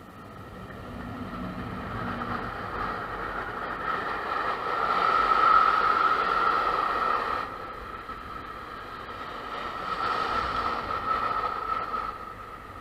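A long freight train hauled by ÖBB electric locomotives passing close: the steady rolling of wagon wheels on the rails, swelling loudest about five seconds in and again around ten seconds, with a steady high ringing tone throughout.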